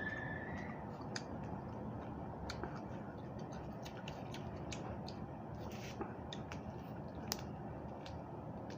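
Chewing raw vegetables: scattered crisp crunches and clicks over a steady background hiss.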